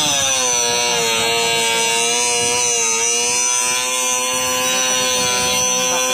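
An electric power tool's motor running with a steady whine. Its pitch sinks over the first second as it takes load, and dips briefly again about three seconds in.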